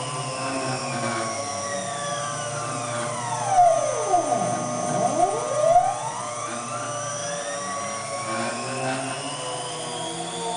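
Stepper motors of a homemade CNC gantry whining as the machine traces a circle, their tones gliding with axis speed. Midway, several tones sweep down to a low point and climb again as one axis slows, reverses and speeds up, with a few rattles around that turn.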